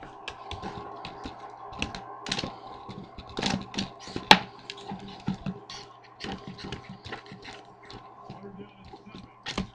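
Irregular clicking and crinkling of an empty plastic soda bottle as a Pomeranian bites and paws at it, with one sharper click about four seconds in, over a faint steady hum.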